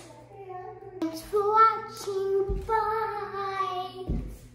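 A child singing a melody in long held notes, with two low thumps about two and a half and four seconds in.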